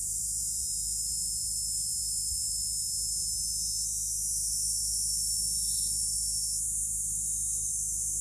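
Steady high-pitched drone of insects, with thin whining tones that come and go within it, over a low steady rumble.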